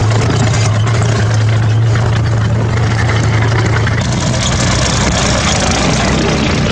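Tracked armoured vehicles driving over desert dirt close by: a tank and then a BMP-1 infantry fighting vehicle, their diesel engines running loud. A steady low drone fades out about five seconds in.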